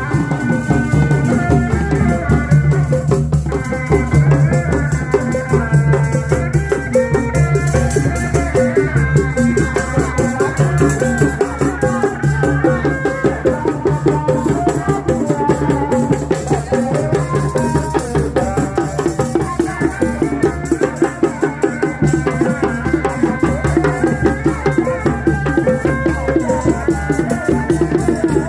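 Live Reak ensemble music. A Sundanese tarompet (double-reed pipe) plays a wavering, ornamented melody over dogdog drums beaten in a fast, steady, driving rhythm. Dense clattering hand percussion runs along with it.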